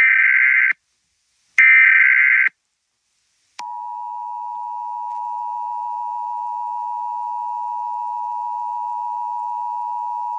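Emergency Alert System tones: the last two of three short, buzzy SAME header data bursts, each under a second long, then after a brief gap a loud, steady two-tone attention signal beginning about three and a half seconds in, the signal that an emergency alert message is about to follow.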